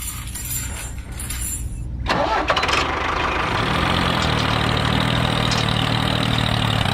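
A small engine starts about two seconds in, then runs steadily.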